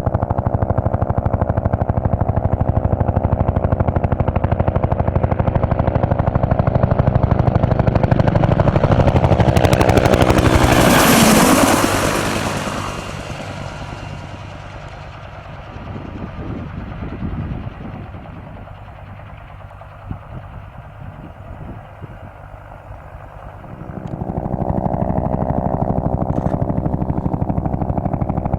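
Bell UH-1 Huey helicopter running, its turboshaft engine and rotor making a rapid, steady chopping pulse. About ten seconds in, a loud rushing hiss swells and fades. The sound then drops much quieter for around ten seconds before the full chopping returns near the end.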